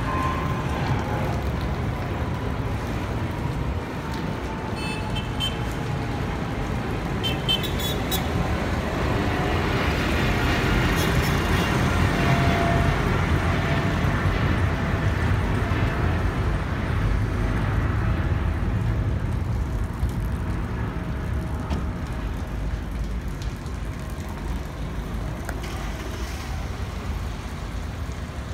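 Boeing 777-200ER's GE90 jet engines as the departing airliner passes overhead and flies away: a broad rumble that swells to its loudest about twelve seconds in and then slowly fades, with a thin whine that drops steadily in pitch.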